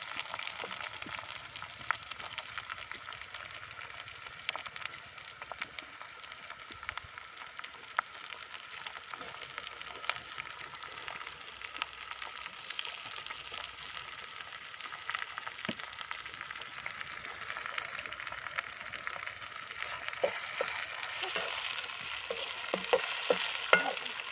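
Food frying in hot oil in a pan, a steady sizzle with scattered crackles. Short knocks and clicks become more frequent near the end.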